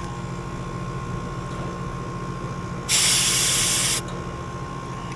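Refrigerant hissing out of an HVAC gauge hose for about a second, starting and cutting off abruptly, from a running air-conditioning system being worked on as it is brought down from an overcharge. Underneath is the steady hum of the running unit.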